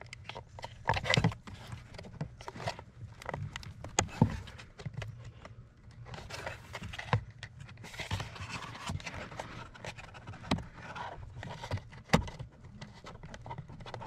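Handling noise of hands working on wiring connectors and parts: scattered sharp clicks and taps among irregular rustling and scraping, over a faint steady low hum.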